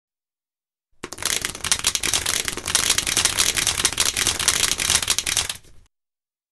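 Dense, rapid clicking and clattering sound effect for an animated logo intro. It starts about a second in and stops suddenly shortly before the end.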